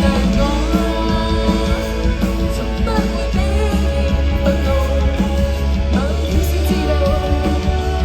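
Live band music: guitars and bass playing with a voice singing.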